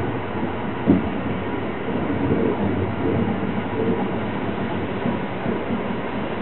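Inside a Sunrise Izumo 285 series sleeper train under way: steady running rumble of the car, with a single knock about a second in.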